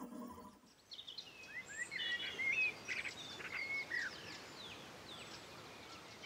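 Songbirds singing: many short chirps and whistled notes that rise and fall, starting about a second in over a faint background hiss.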